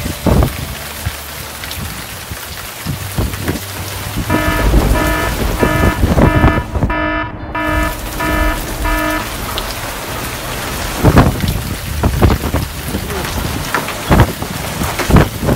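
Heavy rain falling steadily, with gusts of wind buffeting the microphone in low thumps. From about four seconds in, for about five seconds, an electronic alarm beeps in a steady pulse, about two beeps a second.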